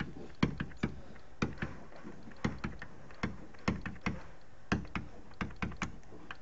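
A pen stylus tapping and clicking on a tablet's writing surface as handwritten letters are drawn, with irregular sharp taps about three a second.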